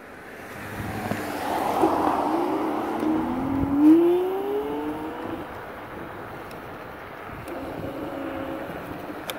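A vehicle accelerating: its motor's pitch rises over a few seconds, loudest about four seconds in, then settles into a steadier, quieter hum.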